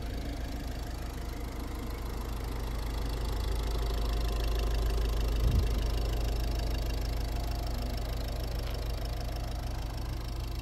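Steady low mechanical hum, swelling slightly in the middle, with one dull thump about five and a half seconds in.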